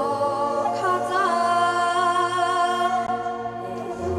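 Korean traditional folk singing, with long held notes that waver in vibrato and bend between pitches over a low, steady sustained accompaniment.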